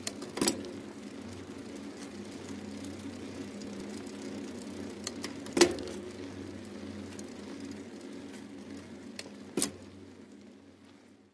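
Intro sound effects: a steady low drone with three sharp cracks, about half a second in, near the middle and near the end, fading out at the close.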